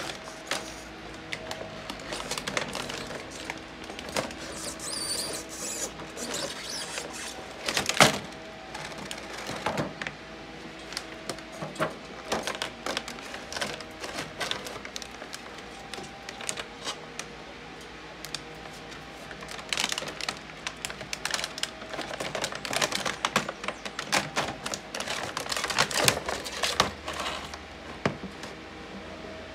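Clear plastic packaging tray and plastic toy pieces being handled: scattered crinkles, clicks and knocks, with one loud knock about eight seconds in and a busier stretch of rattling clicks in the last third.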